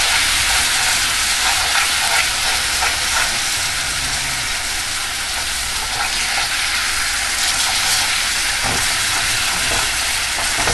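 Pineapple slices sizzling steadily in bubbling brown-sugar-and-butter caramel in a frying pan. A fork clicks against the pan now and then as the slices are turned.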